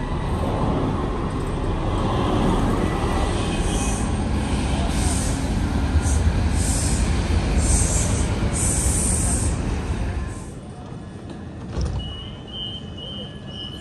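Low-floor tram running with a steady rumble and several short bursts of high hiss, slowing to near rest about ten seconds in. A thump follows, then a string of short high beeps.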